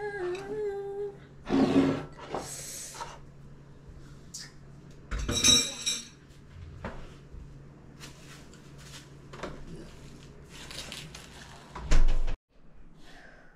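A woman humming a short tune, then several clatters and knocks of household objects being handled, one with a brief ringing clink and the loudest a heavy knock near the end. A steady low hum runs under it all and cuts off suddenly near the end.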